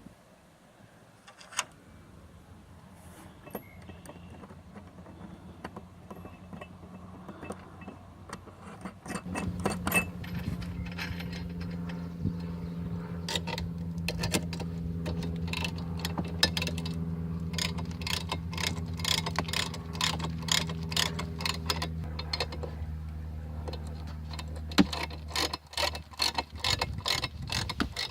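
Power drill with a long bit running steadily under load, starting about a third of the way in and stopping near the end, with many sharp clicks and rattles over the motor hum.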